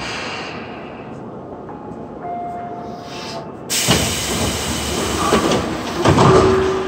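Tobu 9050-series train's doors opening at a stop: a sudden loud hiss of air about four seconds in, followed by louder clatter and noise as the doors slide open.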